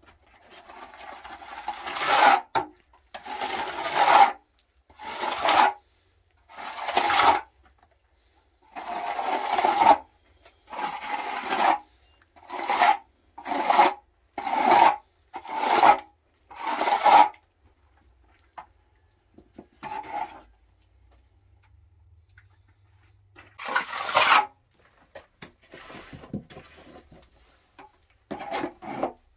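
Plastering trowel scraping wet plaster across a block wall in repeated strokes. There are about eleven strokes in the first seventeen seconds, each swelling louder as it goes, and after a pause a few more scattered ones.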